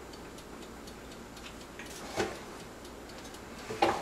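Kitchen handling while raw fish pieces are coated in fish fry and cornmeal: two light clinks against a bowl, one about two seconds in and a louder one near the end, over faint, regular ticking.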